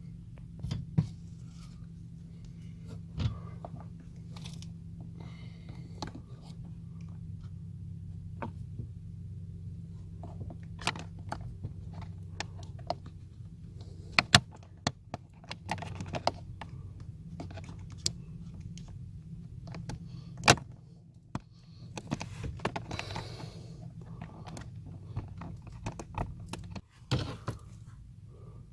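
Plastic clicks, knocks and rustling from handling the cabin air filter and its plastic housing behind the glove box, with a few sharp louder knocks and a stretch of rustling about three quarters of the way through, over a steady low hum.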